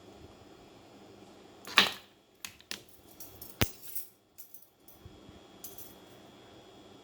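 A few sharp clicks and snaps, small hard objects being handled. The loudest is a snap about two seconds in, with several lighter clicks and one very sharp click after it.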